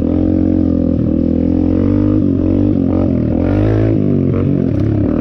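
Dirt bike engine running under way, heard from on the bike, a loud steady drone whose pitch dips and climbs back several times as the throttle is rolled off and on.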